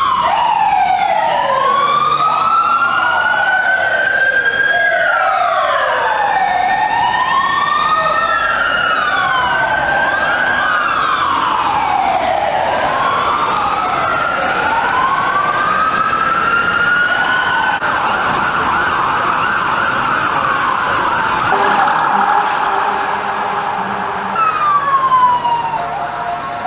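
Several emergency-vehicle sirens wailing at once, their slow rising and falling sweeps overlapping out of step, and about two thirds of the way through they switch to a fast warbling yelp.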